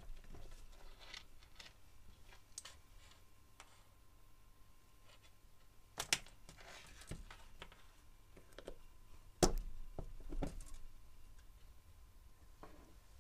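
Handling noises of a rubber-booted ignition high-tension lead and cables being set up on a bench, with a few sharp clicks and knocks. The loudest, a click with a thud, comes about nine and a half seconds in as the lead is pushed onto the ignition coil's tower.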